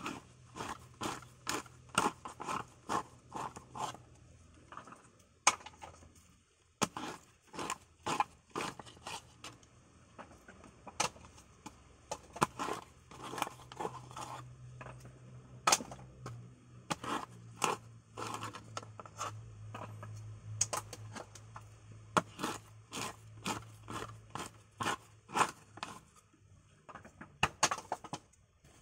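Irregular sharp scrapes and cracks, at times several a second, of a hand tool prying coconut meat loose from the shell in copra making.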